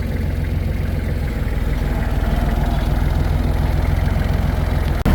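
Tractor engine running steadily with an even low hum, heard from the driver's seat, broken by a brief dropout near the end.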